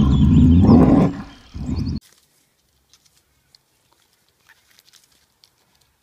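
Asiatic black bear calling with its mouth open: a loud, low call lasting about a second, then a shorter one, while small birds chirp high above. The sound cuts off abruptly about two seconds in, leaving near silence.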